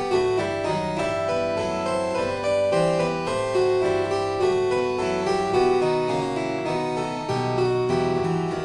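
Instrumental background music on a keyboard instrument, a steady run of quick notes.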